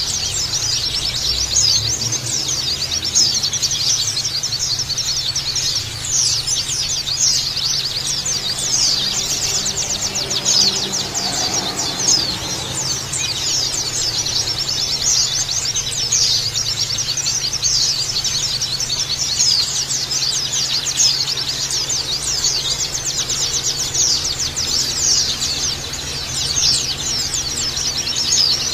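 A dense chorus of many white-eyes (pleci) chirping together, rapid high-pitched twitters overlapping without a break.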